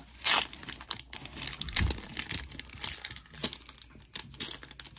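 Foil wrapper of a Pokémon trading card booster pack being torn open, a loud rip about a quarter second in, followed by repeated crinkling and crackling of the foil as it is handled.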